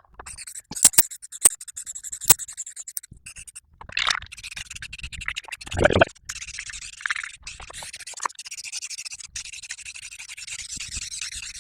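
Paintbrushes scratching back and forth over cardboard as gray paint is brushed on: a dense, dry scraping, with a few sharp clicks in the first couple of seconds and two duller thumps about four and six seconds in.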